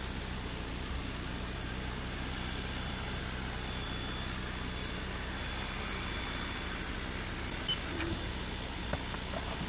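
Creality Falcon 2 22 W diode laser engraver running as it cuts plywood: a steady hiss from its cooling fan and air assist over a low hum, with a few faint clicks near the end.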